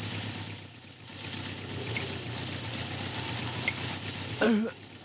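A fallen motorcycle's engine running steadily at idle, with a short cry from a man near the end.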